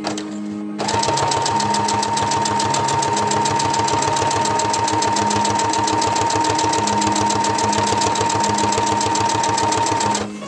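Household electric sewing machine stitching fabric at a steady speed: a rapid, even ticking of the needle mechanism over a steady motor whine. It starts about a second in and stops just before the end.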